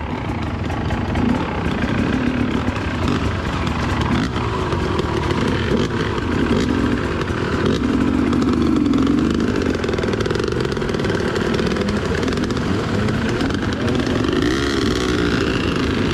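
Dirt bike engine running, its revs rising and falling again and again, with a quicker series of rev swings near the end.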